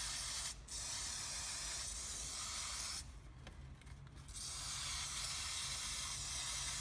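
Aerosol degreaser spray hissing in long bursts as it is sprayed through the air filter of an ST400i fencing stapler from the inside out. There is a brief break about half a second in and a pause of just over a second starting around three seconds in.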